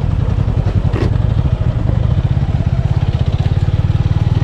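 Single-cylinder motorcycle engine running under way on a rough trail, its exhaust beats fast and steady, with one sharp knock about a second in as the bike goes over a bump.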